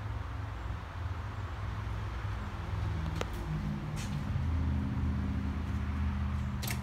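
Steady low mechanical rumble, like an engine or machinery running, with a few sharp clicks about three seconds in, a second later, and just before the end.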